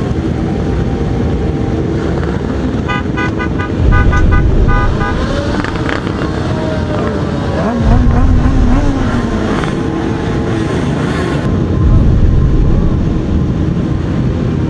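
A large group of motorcycles running and revving close by, a low engine rumble that swells heavily three times. About three seconds in, a horn beeps about six times in quick succession.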